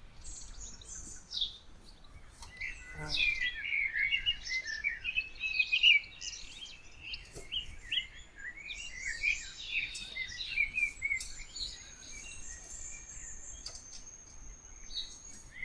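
Several songbirds calling and singing at once, a dense chorus of overlapping chirps and warbles, with a long thin high whistle held from about the middle of the stretch until near the end.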